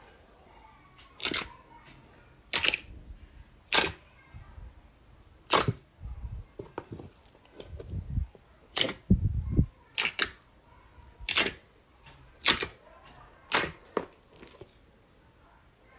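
Soft pink slime being pressed, poked and stretched by hand, giving sharp popping clicks about once a second, with a few duller low squelches in between.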